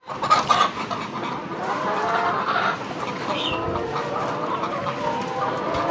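A flock of chickens clucking and calling together, many voices overlapping in a steady din, with a few louder calls in the first second.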